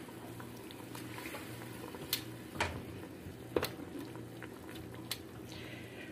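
Pork adobo simmering in a pan, a soft steady bubbling, with a few sharp clinks of a utensil against the pan as the meat is stirred.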